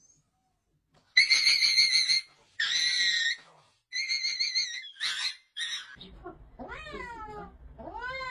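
A Shiba Inu screaming in five shrill, high-pitched cries while it gets an injection. After that, a cat meows twice, each meow rising and then falling in pitch.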